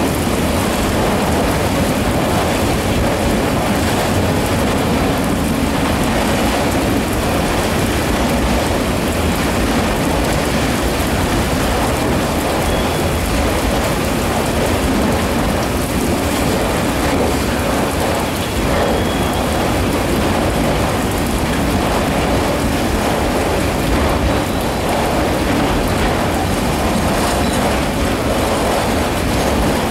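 Heavy rain falling together with the steady rumble and clatter of a Union Pacific freight train's autorack cars rolling past on the rails. A few brief, faint high-pitched squeals come through.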